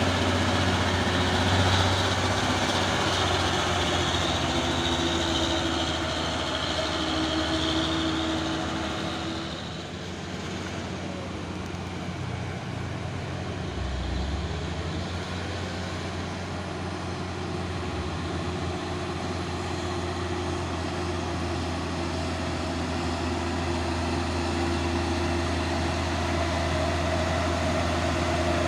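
Heavy truck engine running with a steady low drone, louder for the first several seconds, then easing off and holding steady.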